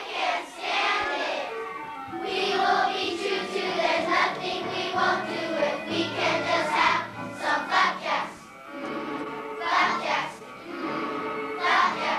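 A children's choir singing a song, with a musical accompaniment whose low notes come in about two seconds in.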